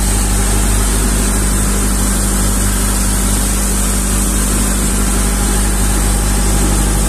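Boat engine running steadily while the boat is under way, a constant low drone, with a steady rush of water from the wake.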